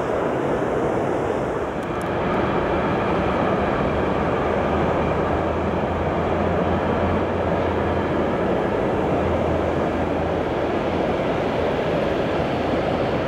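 Container freight train with a Hectorrail electric locomotive rolling across a steel truss railway bridge: a steady rumble of wheels and wagons, with a low hum in the middle of the passage.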